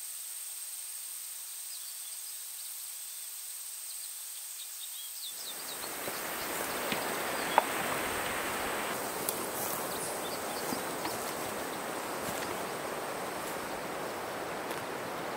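A steady high insect buzz with a few faint chirps. About five seconds in, the even rush of a shallow, rocky river comes in and carries on, with a few sharp clicks over it.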